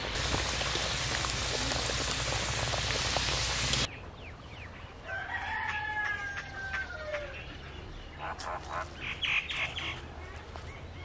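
Samosa deep-frying in hot oil in a karahi: a loud, steady sizzle that cuts off abruptly about four seconds in. Then a rooster crows once, with the call falling at its end, followed by a few short clucks.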